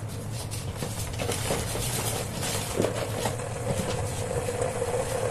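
Water with a film of oil heating on high in a Prestige electric multi-cooker, crackling and ticking as it starts to come to the boil, over a low steady hum. The crackles grow busier from about a second in.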